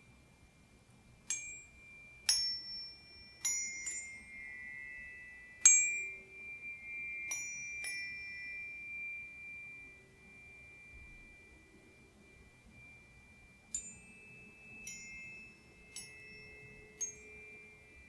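A set of tuning forks struck one after another. Each strike is a bright clink followed by a steady high ring, and the rings overlap and fade. There are about six strikes in the first half, a short lull, then four lighter strikes near the end.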